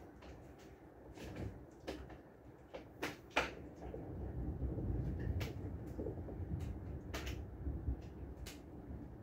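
Heavy rain heard from indoors through a window: a low, steady rumble that swells about four seconds in, with irregular sharp taps scattered through it and the loudest about three and a half seconds in.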